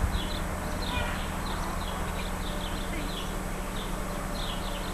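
Small birds chirping: short, high, falling chirps repeated several times a second, over a steady low hum.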